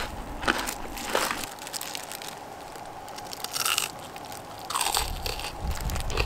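Crunchy bites of crispy-battered fried chicken, with chewing: about four crisp crunches, spaced irregularly with a quieter stretch in the middle.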